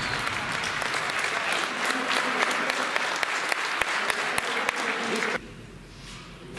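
Audience in a sports hall applauding a successful heavy lift, dense clapping that cuts off suddenly a little over five seconds in.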